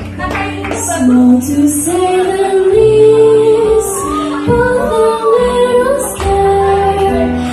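A young girl singing a slow melody with held notes, over instrumental accompaniment.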